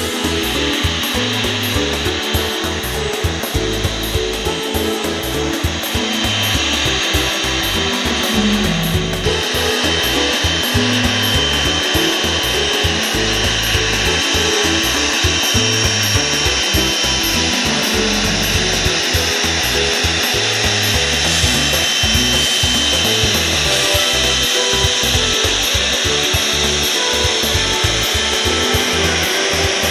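Jet engines of a Boeing 777F freighter (GE90) at takeoff thrust during the takeoff roll: a loud, steady jet noise with a high whine, louder from about nine seconds in. Background music plays underneath.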